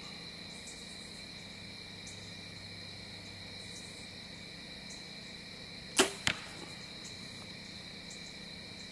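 A bow shot: a sharp crack as the arrow is loosed, then about a third of a second later a smaller smack as it hits a Block foam archery target. Crickets chirp steadily underneath.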